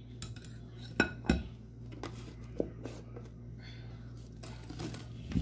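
Wire balloon whisk beating egg yolk and sugar batter in a cut-glass bowl, its metal wires clinking and scraping against the glass, with two sharp clinks about a second in.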